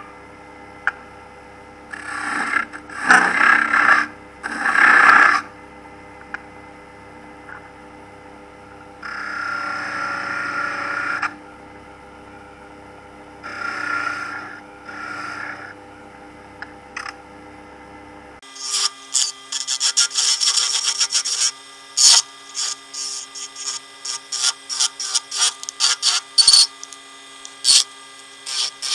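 CNC007 mini lathe motor humming while a cutting tool scrapes spinning black alder in three or four short bursts. About eighteen seconds in, the sound changes: the low hum drops away and rapid, irregular scratchy strokes continue over a higher machine tone.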